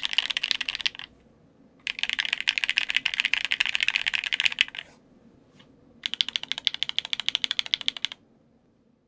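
Typing on a Metakey TENET70 mechanical keyboard with lubed Alpaca v2 linear switches, a polycarbonate plate and GMK keycaps: rapid keystroke clacks in three runs. The runs break about a second in and again near five seconds, with a lone click between, and the typing stops about eight seconds in.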